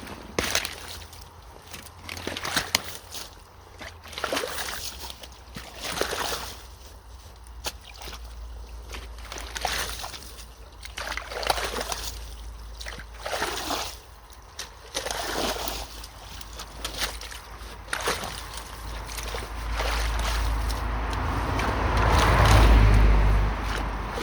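Water splashing and sloshing in uneven bursts every second or two as debris is worked loose by hand in a clogged culvert. Near the end a louder steady rush with a deep rumble builds.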